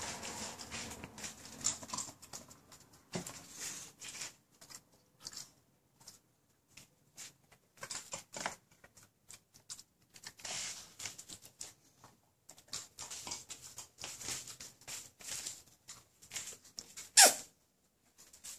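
A small long-haired dog's claws clicking and pattering on a parquet floor as it walks about. There is a brief, loud, sharp sound near the end.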